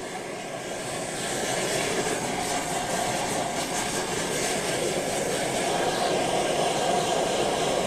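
Gas torch flames hissing steadily as they heat a brass stove burner bowl for silver brazing. The sound grows a little louder over the first second or two, then holds even.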